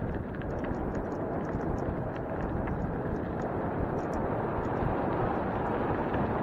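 Wheels rolling over a gravel and dirt road, with a steady low rumble of wind on the microphone and scattered small ticks from loose stones.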